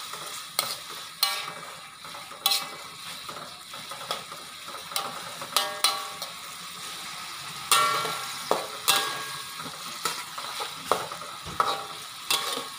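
Metal spatula scraping and clinking irregularly against a metal wok while stir-frying sliced white mushrooms, some strikes leaving a brief metallic ring, over the steady sizzle of the mushrooms frying in oil and sauce.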